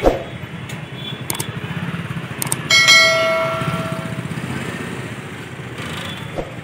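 Subscribe-button animation sound effect: a click, then a single bell ding about three seconds in that rings and fades away over a second and a half. A steady low rumble runs underneath.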